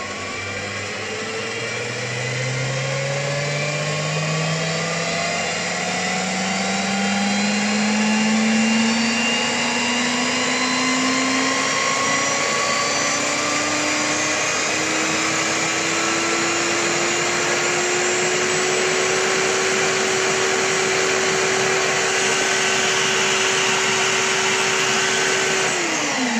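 Einhell BT-TB 13 E Digital drill press motor, set to its second gear, running up as its digital speed control is stepped up in 10 rpm steps: a whine whose pitch climbs steadily for about 17 seconds and then holds at full speed. Near the end the motor is switched off and the whine falls away quickly as it spins down.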